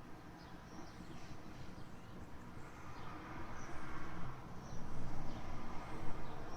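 Small birds chirping in short, high calls over a steady low background rumble that swells louder in the last two seconds.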